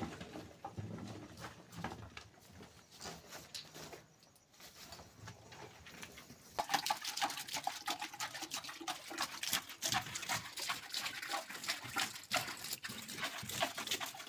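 Hands scraping and spreading loose dry soil over an earth floor. From about six and a half seconds in, this gives way to a louder, dense patter of small crackling hits.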